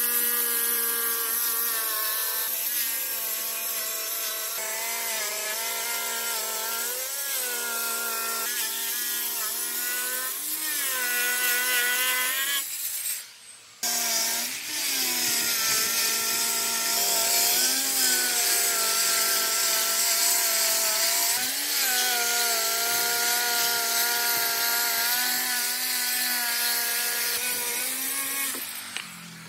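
Handheld electric stone cutter with a diamond blade cutting a granite slab: a steady motor whine over a hissing grind, its pitch dipping briefly several times as the blade bogs under load. About 13 seconds in it stops for a moment and starts again, and it winds down near the end.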